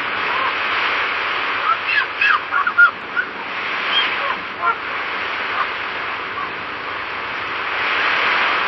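Ocean waves washing as a steady hiss that swells again near the end, with a burst of short bird calls about two seconds in and a few more around four seconds.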